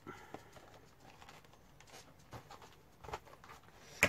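Handling of a cardboard retail package: scattered light taps and rustles, then a sharp click about four seconds in as it is set down.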